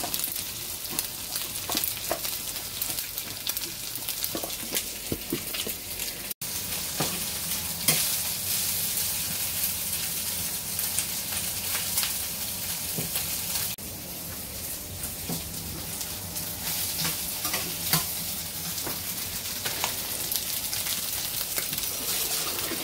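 Diced chicken and onion sizzling in a nonstick frying pan, stirred with a metal slotted spatula that scrapes and taps against the pan.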